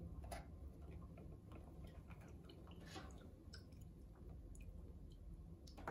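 Near silence: quiet room tone with a few faint clicks and ticks as a small bottle of anise extract and a metal teaspoon are handled over a mixing bowl, one spoonful at a time.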